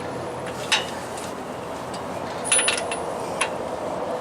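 A few sharp metallic clinks of a deep socket and long-handled wrench being fitted to and worked on the truck's U-bolt nuts: one about a second in, a quick cluster past the middle and one more near the end, over a steady background hum.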